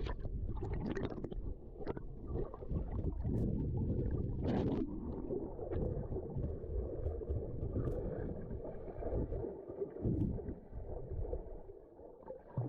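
Kayak paddling on calm water: paddle strokes splashing and water sloshing against the hull, with a steady rumble of wind on the microphone underneath.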